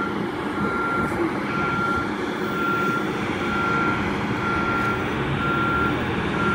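A warning beeper sounding about once a second, each beep about half a second long, over a steady low engine rumble.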